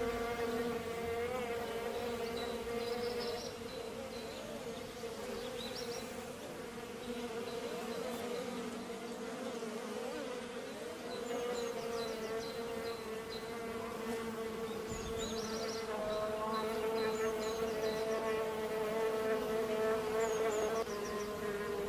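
Bees buzzing in a steady drone, several wingbeat pitches wavering and crossing one another, a little louder in the last few seconds. Faint high chirps come and go in the background.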